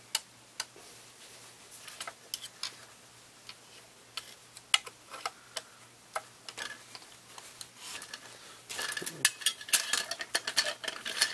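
Scattered light metal clicks and clinks of T-handle Allen wrenches being tried in a rifle stock's grip screw and handled at their rack, growing busier and louder near the end.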